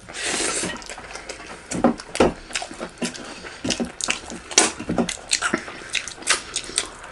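Close-miked eating sounds of two people eating by hand: wet chewing, clicky lip smacks and finger licking, with a short noisy burst right at the start.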